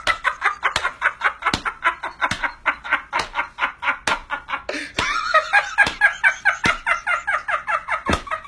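Hearty, continuous laughter in quick 'ha-ha' pulses, about four or five a second, with a sharp clap about once a second.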